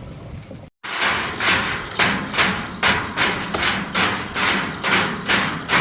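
Repeated hammer blows, about two to three a second at an uneven pace, starting after an abrupt cut about a second in.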